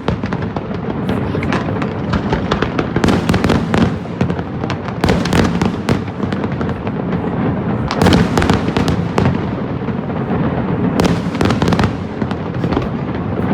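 Fireworks display going off continuously: dense volleys of sharp crackling bangs over a steady low rumble of shell bursts, with heavier clusters of cracks coming in waves every few seconds.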